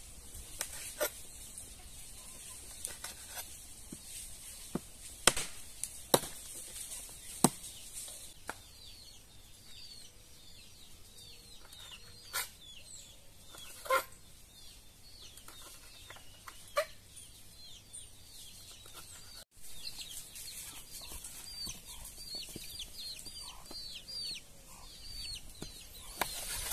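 Chickens clucking and peeping on and off, with many short high calls. Several sharp clinks and knocks come from a knife and steel bowls on a table.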